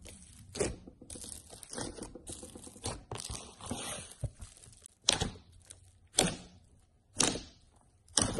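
Foamy slime with small beads mixed in, pressed and squeezed by hand, crackling and crunching continuously. In the second half four sharper crackles come about a second apart.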